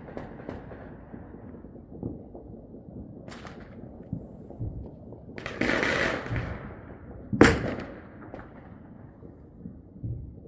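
Fireworks going off: scattered sharp cracks and pops over a low rumble, a hissing crackle lasting about a second near the middle, and the loudest single bang shortly after it.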